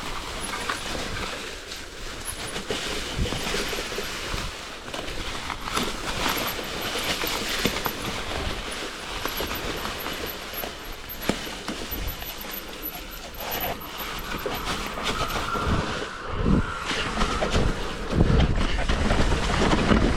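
Hardtail mountain bike riding fast down a leafy dirt trail: tyres rolling and crunching over the ground, with the frame and chain rattling over bumps. Heavier knocks and thuds come near the end.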